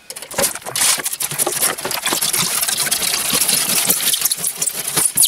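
Cutting wire being drawn through a polystyrene (EPS) insulation board, making a continuous dense crackling rasp as it cuts through the foam.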